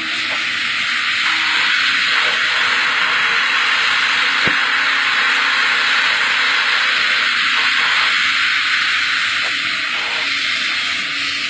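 JCB crawler excavator working close by, heard as a loud, steady hiss of engine and hydraulics with little low rumble. A single sharp click comes about halfway through.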